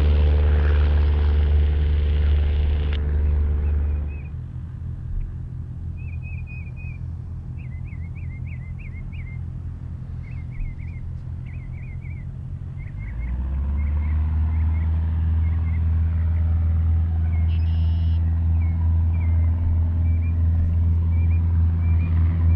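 Light piston aircraft engine and propeller running at low power with a steady drone, which fades about four seconds in and swells back about thirteen seconds in. A small bird chirps repeatedly in between.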